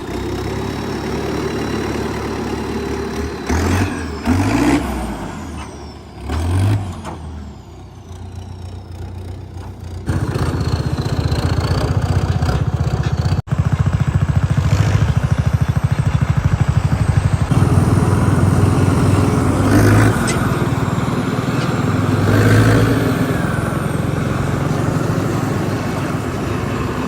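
Sonalika RX tractor's diesel engine running as the tractor drives off pulling a hitched cart. The engine note is uneven for the first few seconds, then louder and steadier from about ten seconds in.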